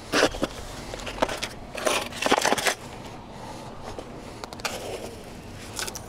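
Hands scraping and pressing gritty bonsai substrate around a tree's roots: a few short crunchy scrapes, the longest cluster about two seconds in.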